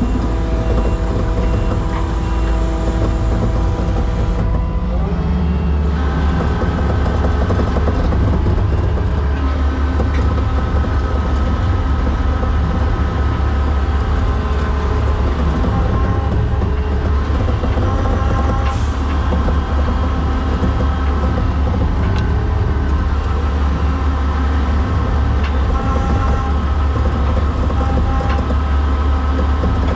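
Diesel engine of a skid steer running steadily under load while winching. Its note changes about five seconds in, then holds a steady drone.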